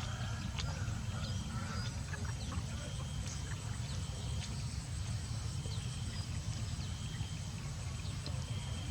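Faint, scattered short calls and clucks of fowl over a steady low rumble.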